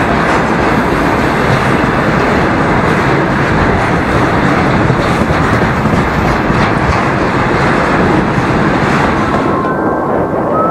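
A train running along the rails with a steady rumble and rattle.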